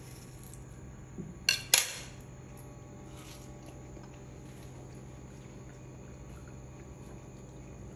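A metal spoon clinks twice, sharply, against a ceramic plate about a second and a half in, just after a softer knock. A steady low hum runs underneath.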